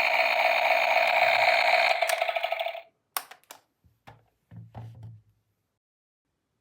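Toy electric screwdriver's small motor whirring steadily, then winding down and stopping just under three seconds in. A few light plastic clicks and taps follow.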